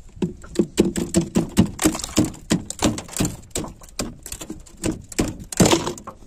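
Rapid, irregular series of knocks and thuds, several a second, like repeated striking with a hand tool.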